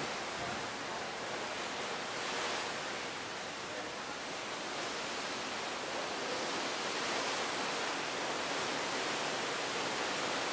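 Wind and sea rushing past a cruise ship under way on the open ocean: a steady, even hiss that swells a little a couple of times.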